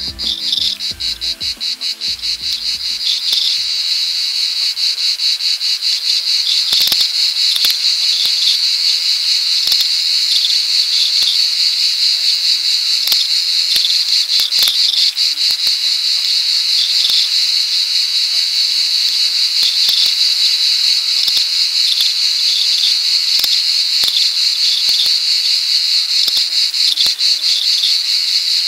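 Loud, steady insect chorus, a fast pulsing shrill that runs on without pause. The last of the background music fades out in the first few seconds.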